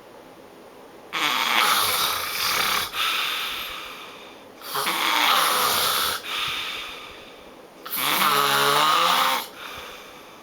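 A person snoring loudly: three long snores about three seconds apart. The last one has a buzzing, pitched rattle.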